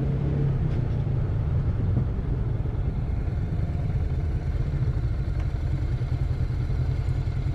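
Motorcycle engine running, its low note settling into an even pulsing about two seconds in.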